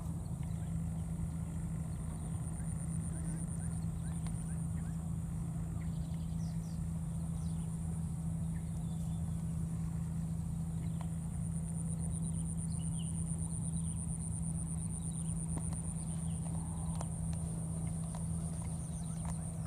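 Steady outdoor background: a high, pulsing insect trill over a constant low hum, with a few faint chirps now and then.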